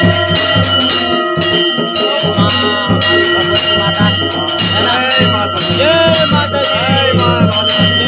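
Brass temple bells ringing continuously, several tones held on top of one another, over a rapid low beat and crowd voices.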